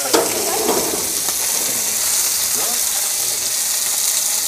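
Steady sizzle of meat searing in hot fat, with a single sharp click right at the start.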